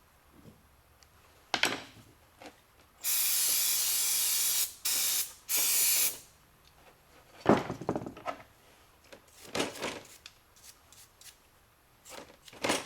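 Three bursts of pressurised spray hissing, about three seconds in, the first the longest, on small ignition switch parts. Sharp knocks and clatter of small parts being handled come before and after.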